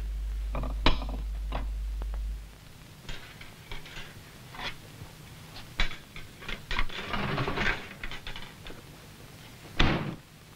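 Dishes and bowls knocking and clinking in scattered clatters as they are loaded into a dishwasher's racks, with a louder thunk near the end as the dishwasher door is pushed shut. A steady low hum cuts off about two seconds in.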